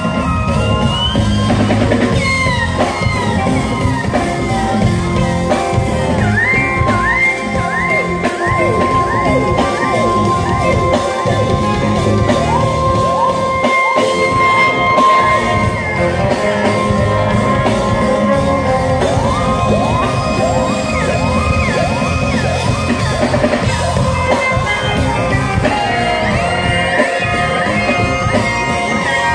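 Live funk band playing at full volume: electric guitars, bass, drum kit, keyboards and a horn section of trumpet and saxophone, with a long held note through the middle.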